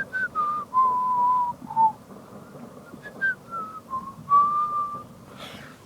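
A person whistling a short tune: two falling phrases of separate notes, the first ending on a long low note about a second in, the second on a long held note near the end.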